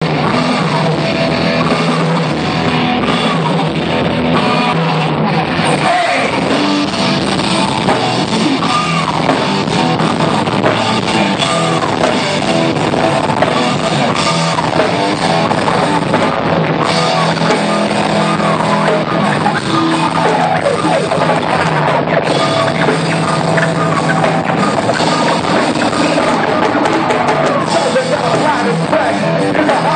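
Rock band playing: a drum kit, electric guitar and singing, loud and continuous.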